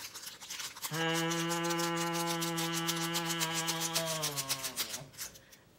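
Crinkly foil seasoning packet rustling and rattling as it is shaken and squeezed out over a bowl of noodles. From about a second in, a long steady hum from a woman's voice is held for about three seconds and falls in pitch as it ends.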